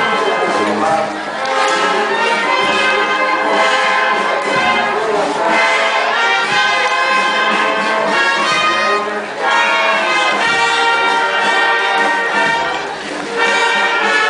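Procession band of tuba, trumpets, clarinets and drums playing a slow melody, with short breaks between phrases.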